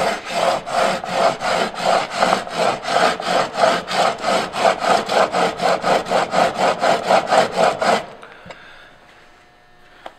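Steel chisel bevel, set in a honing guide, rubbed back and forth on a coarse abrasive sheet in quick, even scraping strokes of about three a second: the first, heavy-grit stage of sharpening, grinding the bevel at about 27 to 28 degrees. The strokes stop suddenly about eight seconds in.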